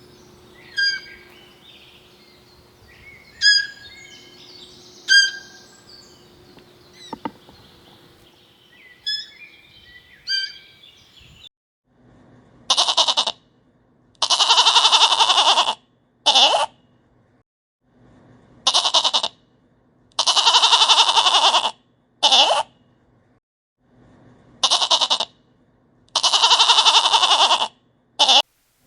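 Animal calls: for about ten seconds, scattered short high chirps. Then the same call group comes three times at even spacing, each a short call, a long pulsing call of about a second and a half, and another short call.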